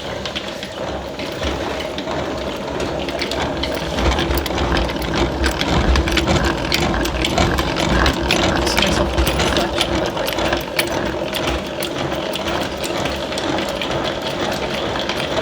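Honey extractor spinning honeycomb frames, its gears and drum whirring steadily with a rattle of small clicks. It gets louder about four seconds in.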